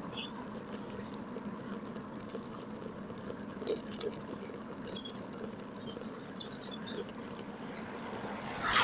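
Steady road and wind noise from a bicycle riding along a street, played at double speed, with scattered small clicks and a louder burst near the end.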